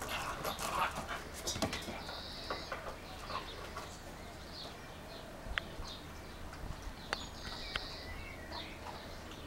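A Jack Russell terrier scuffling a basketball around on concrete, with a few sharp knocks about five and a half, seven and eight seconds in. Birds call in the background, including two longer high calls.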